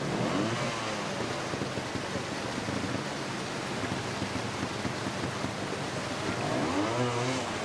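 Two-stroke trials motorcycle engine running with throttle blips, its revs rising and falling shortly after the start and again near the end, over a steady rushing noise.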